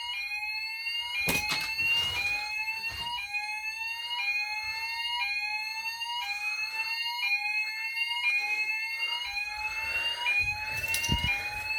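Squashni fire alarm sounder going off in a repeating rising sweep tone, about three sweeps every two seconds, at a medium volume. It is sounding in alarm during a fire alarm system test.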